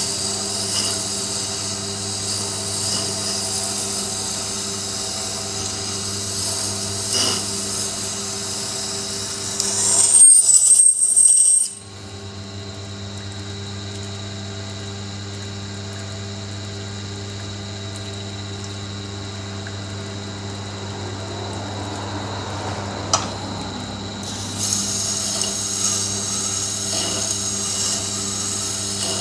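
Tormek T7 wet grinder's motor humming steadily while the steel blade of a Buck folding knife grinds against the turning wet stone with a high, scratchy hiss. The bevel being ground is a long way off angle. The grinding stops partway through, leaving only the motor's hum, and starts again near the end.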